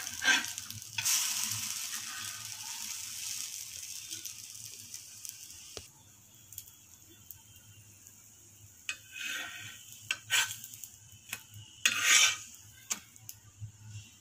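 Egg-batter-dipped bread slices sizzling in butter on a flat griddle just after one is flipped with a metal spatula: a knock as it turns over, then a sizzle that swells about a second in and fades away over the next few seconds. Near the end come a few short scrapes and taps of the spatula on the griddle.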